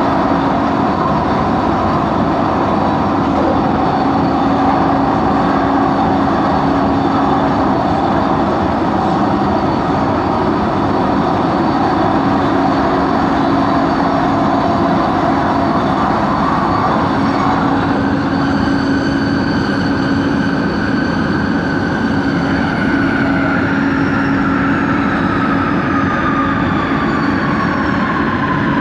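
Ride noise inside Set 70, an LRT train in motion: steady rolling noise with a constant hum throughout. From about two-thirds of the way in, a traction motor whine falls slowly in pitch, typical of the train slowing. This train set is known for a weird motor noise coming from coach 4.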